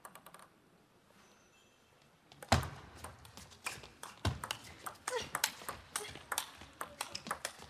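Table tennis rally: a celluloid ball clicking sharply and irregularly off the rackets and the table. It starts about two and a half seconds in, after a near-quiet pause while the serve is set up.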